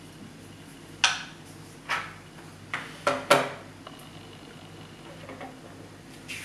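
Sharp clicks and light knocks of a small model ship deck piece and its tiny plastic parts being handled and set down on a wooden table, about five of them close together starting a second in.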